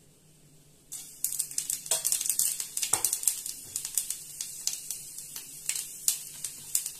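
Panch phoron (Bengali five-spice whole seeds) crackling in hot mustard oil in a wok, the tempering stage of the dish; the crackle of many small pops starts suddenly about a second in.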